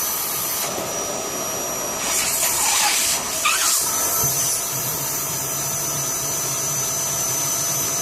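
Vacuum cleaner running continuously while sucking on the end of an air conditioner's drain hose to clear a blockage. Its sound shifts several times, with louder rushing surges about two to three and a half seconds in, then settling into a steadier, lower drone.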